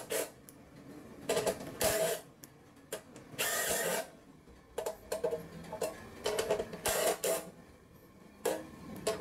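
Makita TD112D 12-volt cordless impact driver run in a series of short trigger bursts, spinning and hammering small screws into a steel channel on its highest speed setting.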